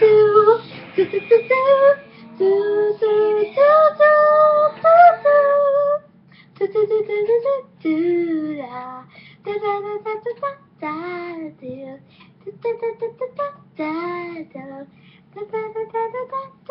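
A girl's voice singing and making wordless vocal noises: long wavering held notes for the first few seconds, then a run of short separate calls with pitch slides up and down.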